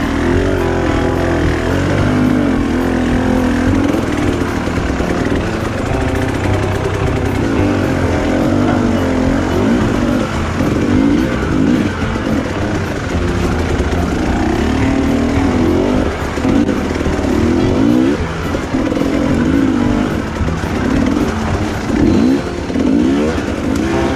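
Honda CRF dirt bike's single-cylinder four-stroke engine ridden hard on a trail, its pitch rising and falling again and again as the throttle is opened and closed.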